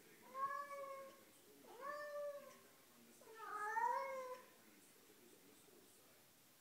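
Domestic cat meowing three times, each call drawn out for about a second, the last one the loudest.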